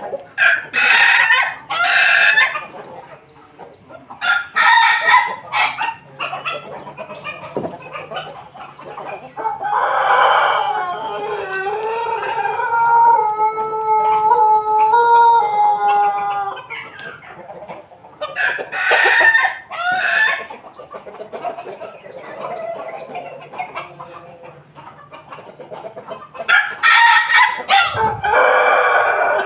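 Pelung, Bangkok and ketawa roosters crowing loudly in turn, several crows in all. One long, drawn-out crow about a third of the way in lasts several seconds. Hens cluck between the crows.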